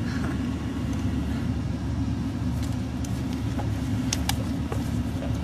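Steady low road and engine rumble inside a moving car's cabin, with a few faint clicks partway through.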